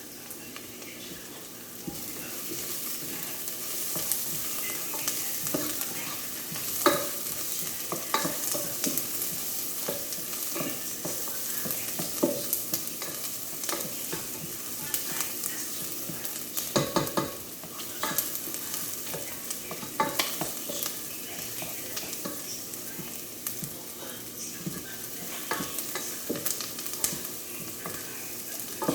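Chicken sizzling as it fries in a pan for adobo, with a steady sizzle throughout. A cooking utensil stirs it, knocking and scraping against the pan now and then, a few times more sharply.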